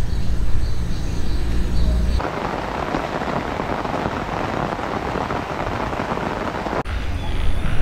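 A low rumble for the first two seconds, then steady rain falling on a garden. Near the end the rain cuts off suddenly and the low rumble returns.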